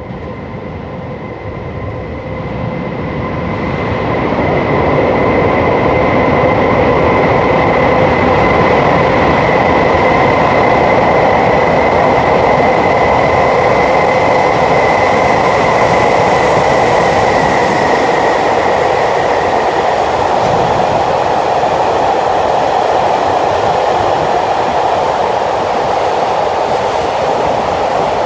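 Freight train running through a tunnel station at high speed: a loud rumble that builds over the first few seconds and then holds steady as the train keeps passing. A steady high whine runs along with it and fades out about two-thirds of the way through.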